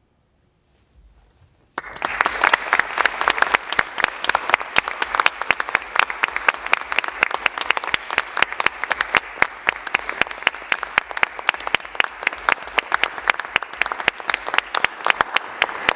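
Audience applauding: after a moment of near silence, clapping breaks out suddenly about two seconds in and carries on steadily.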